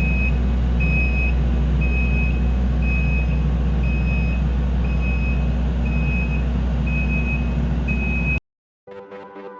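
Kubota skid steer's diesel engine running steadily while its reversing alarm beeps, about one beep every three-quarters of a second. The sound cuts off abruptly near the end, and electronic music starts.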